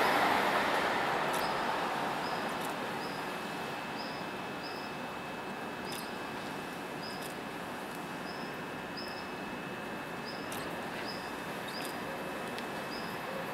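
Alstom Citadis Dualis tram-train standing at a platform: a rushing noise dies away over the first few seconds, leaving a steady hum with faint high whines. Short high chirps repeat irregularly, about once or twice a second, with a few light clicks.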